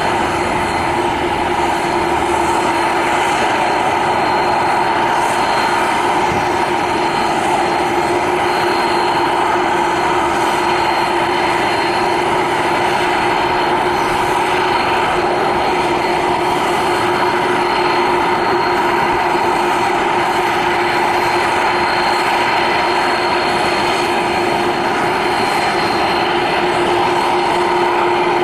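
Boeing 747-400 freighter's four turbofan engines running at taxi thrust: a steady jet rush with a held low hum and a high whine over it.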